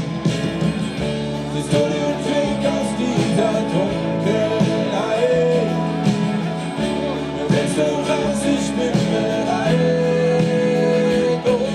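A live pop-rock band playing, with guitar chords and a voice singing over them.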